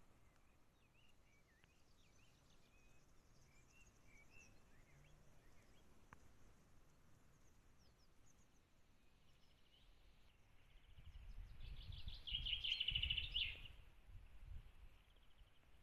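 Wild birds singing: faint scattered chirps and short whistles, then a louder bird song of rapid repeated notes about twelve seconds in, with a low rumble under it.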